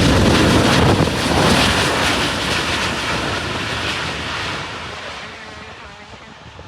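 Boeing 737-800's CFM56 jet engines roaring as the airliner passes, loudest in the first couple of seconds and then fading steadily away.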